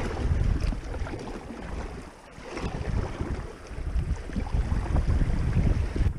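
Wind rumbling on an action camera's microphone over the rush of shallow creek water around a packraft, with paddle splashes; the rumble eases briefly about two seconds in.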